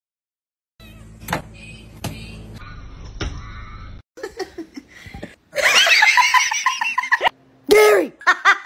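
A person laughing hard in a quick run of giggles lasting nearly two seconds. It comes after a stretch of light clicks and knocks over a low hum, and a short loud call follows near the end.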